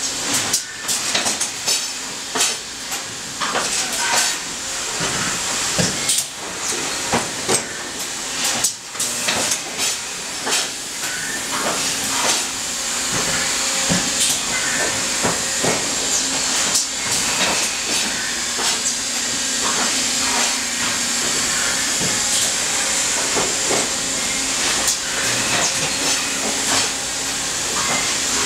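Factory machinery running: a steady hiss with frequent clanks and clicks mixed in.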